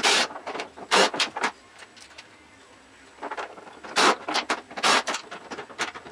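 Cordless power driver with an 8 mm swivel socket spinning out clutch-cover bolts on a Can-Am ATV, in short bursts. A cluster of bursts comes about a second in, then a pause of about a second and a half, then several more in quick succession toward the end.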